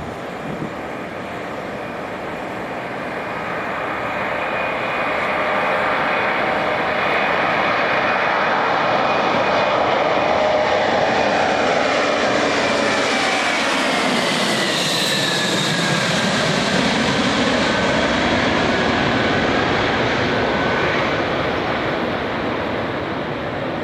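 Twin jet engines of a Boeing 767-200ER at takeoff power, swelling a few seconds in and passing by, with a whine that falls in pitch past the middle before the noise eases near the end.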